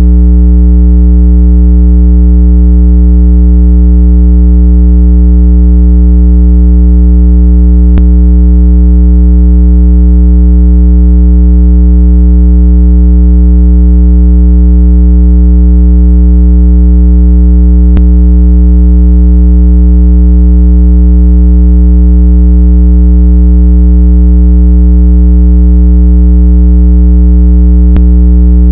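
Synthetic speaker-cleaning tone: a loud, steady, low-pitched electronic hum with many overtones, held without change. It is meant to be played at full volume so the phone's speaker cone vibrates and pushes trapped water out of the grille.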